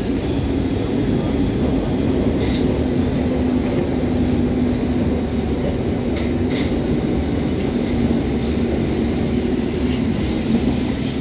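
Berlin U-Bahn train running with a steady rumble and a low motor hum that slowly falls in pitch, with a few faint clicks.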